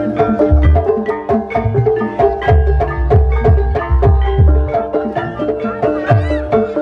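Javanese gamelan music accompanying an ebeg horse dance: struck bronze metallophones ring out a running melody of held notes over frequent deep drum strokes that drop in pitch, typical of the kendang.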